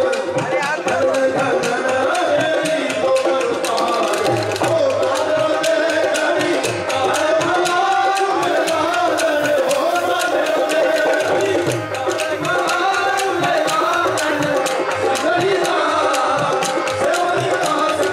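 A male singer sings a Rajasthani folk song live over a stage PA. A folk ensemble backs him, led by steady hand-drum strokes.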